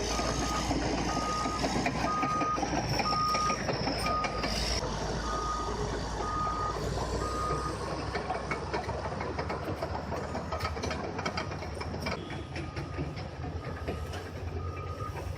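Bulldozer's reversing alarm beeping about every two-thirds of a second over the steady running of its engine; the beeps stop about halfway through and come back faintly near the end.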